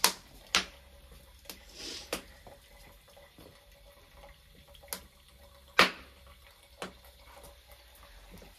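Wood fire crackling in a wood-burning stove: a handful of sharp, irregularly spaced pops, the loudest a little before six seconds in.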